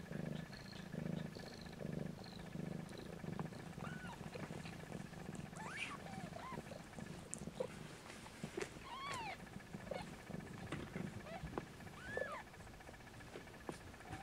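Mother Snowshoe Siamese cat purring in slow, even pulses over the first few seconds. Her newborn kittens give several thin, high squeaking mews, each a short rise and fall in pitch.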